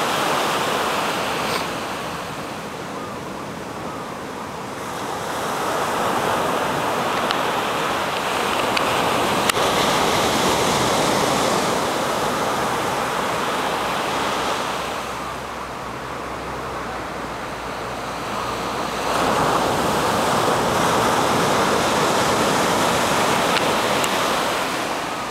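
Ocean surf breaking and washing up the shore, a steady rush that swells and eases in long surges as the waves come in.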